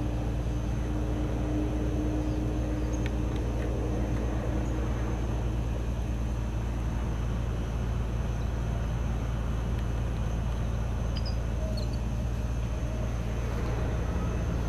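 A steady low mechanical hum, like an engine running, with a faint steady high whine above it. A few faint short high chirps come about three quarters of the way through.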